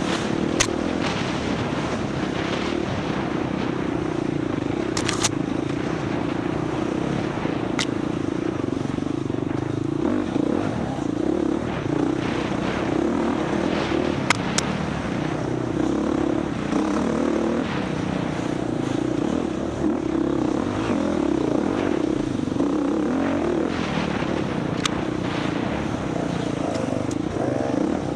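Husqvarna FX 350 dirt bike's single-cylinder four-stroke engine running hard on an off-road trail, its revs rising and falling continually. A few sharp clicks and knocks come through.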